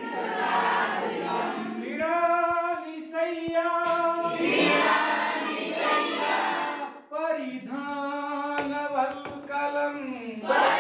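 A class of students chanting Sanskrit shlokas together in unison, sung to a slow melody with long held notes.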